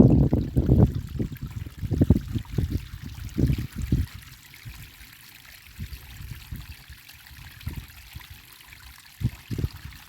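Rainwater running in a stream or runoff channel: a steady hiss with irregular low rumbling surges that come and go, heaviest in the first few seconds and again near the end.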